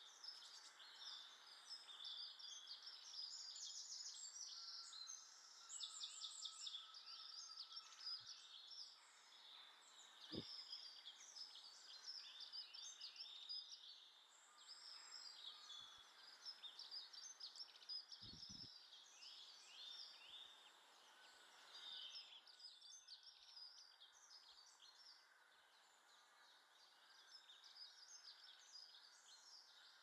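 Faint, busy chatter of small garden birds chirping and twittering, with quick trills mixed in. A few soft low knocks break through: one about ten seconds in and a quick double knock about eighteen seconds in.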